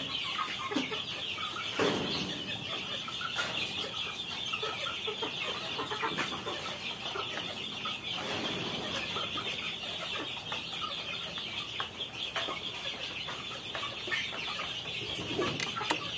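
A flock of young native chickens cheeping and clucking continuously, with a dense chorus of high peeps, and a couple of brief knocks.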